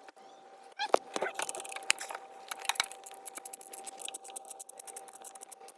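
Hand tools clicking and scraping on metal engine parts: a run of quick, irregular metallic clicks and rattles from about a second in, over a faint steady tone.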